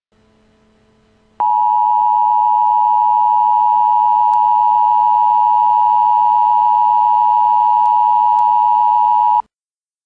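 Emergency Broadcast System attention signal: a loud, steady two-tone alarm (853 and 960 Hz together) that starts abruptly about a second and a half in, holds for about eight seconds and cuts off suddenly. A faint hum comes before it.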